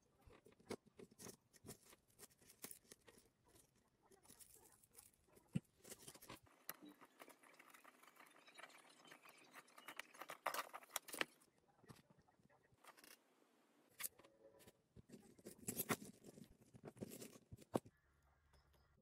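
Faint, irregular small clicks and taps of metal jump rings and flat-nose pliers against resin cat-paw charms and an acrylic chain link as a keychain is assembled.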